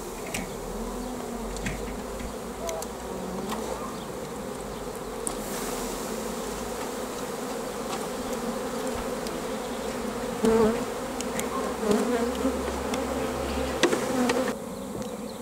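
A honey bee swarm buzzing steadily, many bees at once, with a few sharp knocks and louder rustling in the later part.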